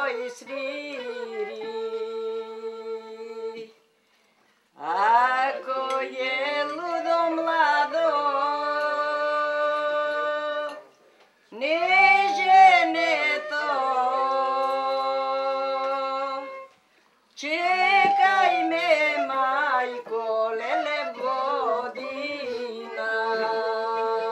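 A woman singing a slow folk song with a wooden end-blown flute, in four long phrases. Each phrase opens with wavering, ornamented notes and settles into a long held note, with short breaths between phrases about 4, 11 and 17 seconds in.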